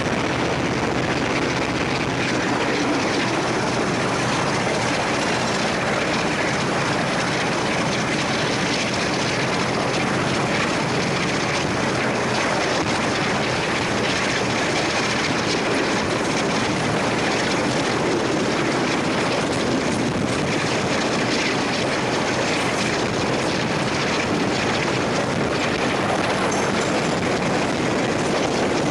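Diesel-hauled passenger train on the move, heard from an open carriage window: the steady drone of the Class 37 locomotive with wheels running on the rails and wind rushing past the microphone.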